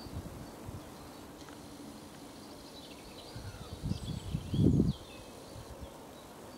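Outdoor woodland ambience with a few faint bird chirps. Two low, muffled bursts on the microphone come about four seconds in.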